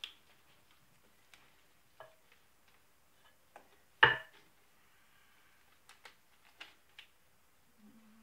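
Light scattered clicks and taps of a small plastic glitter jar being handled and tapped over a soap mold, with one sharper, louder knock about halfway through as the jar is set down on the table.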